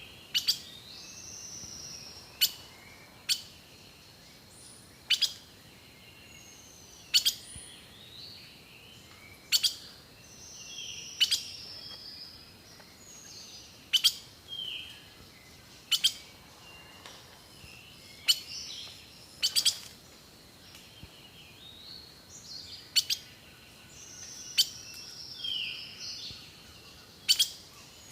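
Birds singing: short whistled phrases that slide downward in pitch, broken by sharp click-like notes roughly every two seconds, which are the loudest sounds. A faint steady high whine runs underneath.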